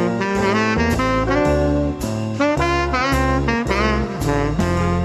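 Upbeat jazz outro music: a saxophone-like horn melody over a bass line and drums, with cymbal hits about twice a second.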